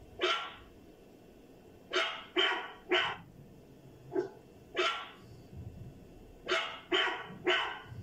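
A dog barking repeatedly: a single bark, then runs of three quick barks about half a second apart, with a fainter bark a little after the middle.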